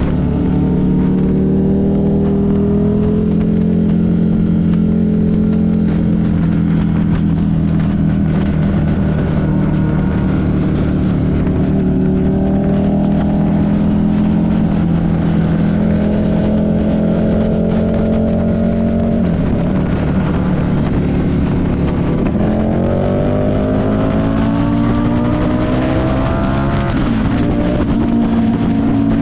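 Buell 1125CR's 1125 cc V-twin engine running under way at steady revs. About two-thirds through, the note drops briefly, then climbs in pitch as it accelerates, dips at a gear change near the end and settles to a steady note again.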